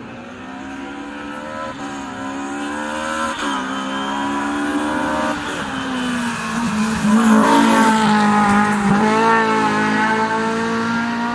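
Race car engine approaching hard and passing, the pitch climbing and dropping back at several upshifts in the first six seconds, then loudest as it goes by about seven to ten seconds in.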